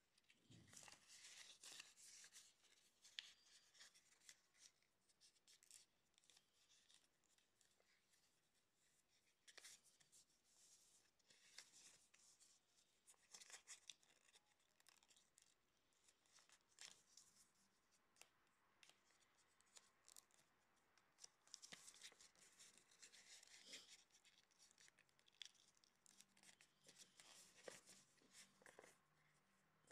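Faint rustling and crinkling of a sheet of paper being folded and creased by hand, in irregular bursts.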